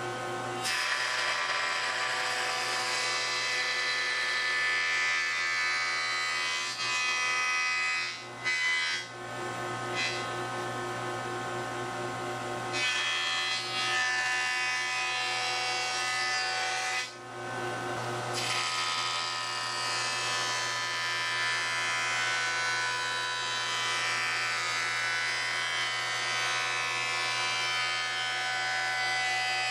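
Jointer running with a steady motor whine while a pine board is pushed across the cutterhead, its face being planed flat for glue-up, with a rising and falling cutting hiss over the whine. The sound drops briefly a few times.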